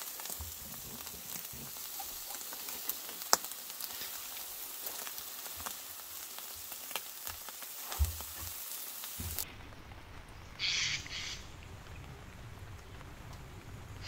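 Chicken wings sizzling on a charcoal grill grate, a steady hiss with scattered pops and crackles, one sharp crack about 3 s in. About 9 s in, the sizzling cuts off abruptly, leaving a low outdoor rumble and a short call-like sound a second later.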